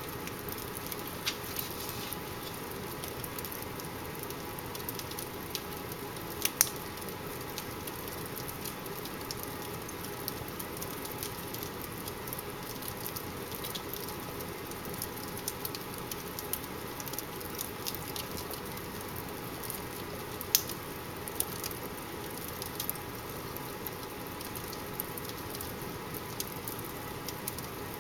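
Fire in a fireplace crackling: frequent small snaps and pops over a steady low hiss, with two louder pops, one about a quarter of the way in and one about three-quarters through.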